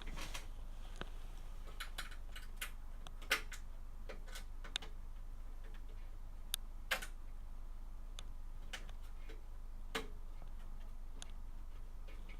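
Screwdriver driving the graphics card's bracket screws into a PC case: scattered, irregular small metal clicks and ticks, a few louder ones, over a low steady hum.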